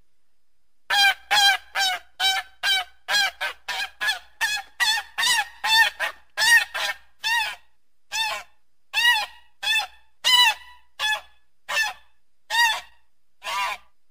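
Goose honking: a long series of short calls starting about a second in, quickly repeated at first, then slowing to roughly one a second over the second half.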